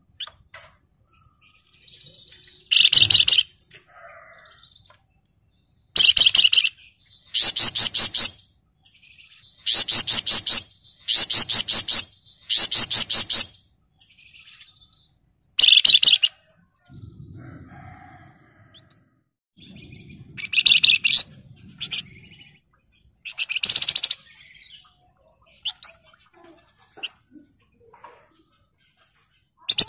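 Flamboyan songbird singing: a string of short, high-pitched, rapid buzzy trills, each lasting about a second, separated by brief pauses, the dense trilling song the bird is kept for.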